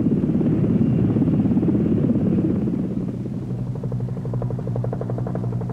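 Helicopter flying overhead: dense, rapid rotor chop that gives way about three and a half seconds in to a steadier, faster pulsing beat over a hum.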